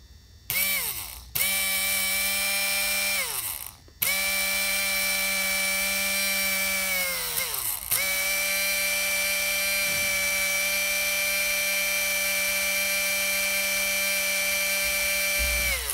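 Large brushed DC motor spinning up at full speed, powered from a freshly charged supercapacitor bank, with a steady high whine. It is switched on and off four times by touching the lead. Each time it cuts out the whine falls in pitch as the motor coasts down, and the last run is the longest, about seven seconds.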